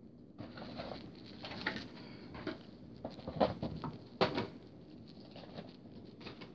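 Handling noise from unpacking a plastic model airliner: irregular rustling and scraping against the box and packaging, with a few sharp taps and knocks, the loudest about three and a half and four seconds in.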